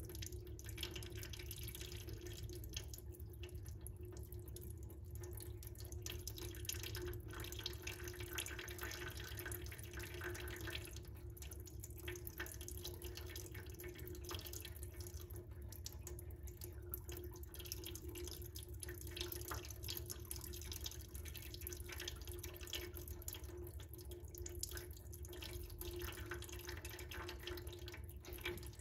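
Diesel mixed with old gear oil trickling and dripping out of the Mity Kat dozer's rusty gearbox housing, a faint steady run of liquid with small drips throughout, over a steady low hum. The diesel poured in to flush thick old oil is coming out through the housing.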